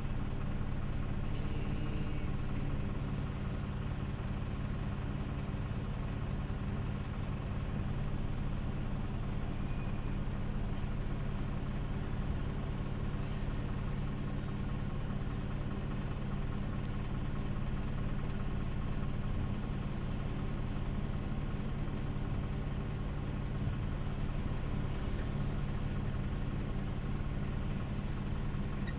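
Vehicle engine running with a steady low hum, heard from inside the cabin.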